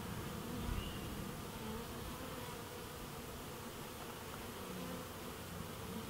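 Honeybees buzzing steadily around an open top-bar hive, from a comb crowded with bees held up out of it. There is a soft low thump just under a second in.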